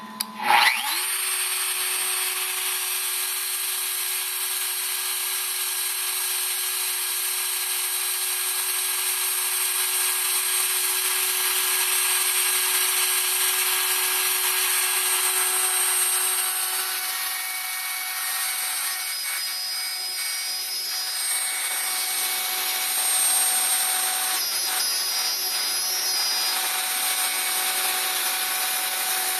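Handheld wood router used as a CNC spindle, switched on and spinning up with a rising whine in the first second, then running at speed with a steady high whine and hiss as its bit mills into a wood board.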